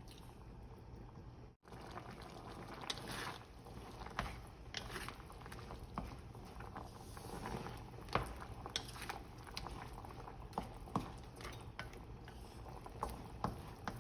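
Chicken curry sauce thickened with coconut milk bubbling in the pot, a steady hiss with scattered sharp pops.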